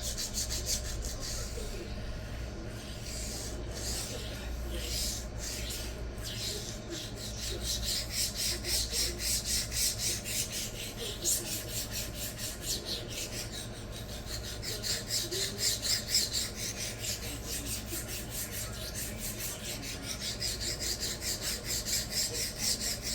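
Stainless steel knife blade being stroked back and forth on a resin-bonded diamond sharpening stone, a scratchy rasp in runs of about three strokes a second. The grating comes from a large burr raised along the edge dragging on the stone.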